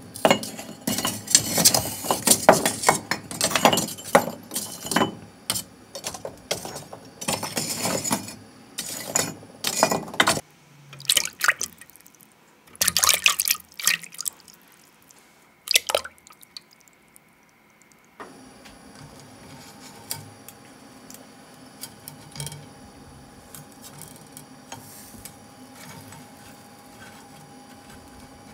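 Small live fish thrashing and splashing in a bowl of water: a dense run of splashes and drips that stops about ten seconds in, followed by two brief flurries. After that comes a faint steady hiss of skewered fish grilling over charcoal.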